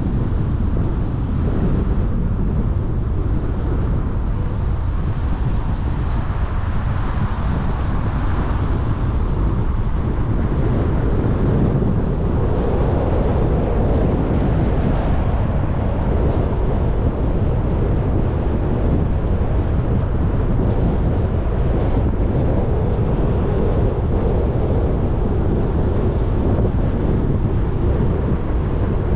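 Steady noise of a car on the move: tyre and road rumble with wind, some of it on the microphone.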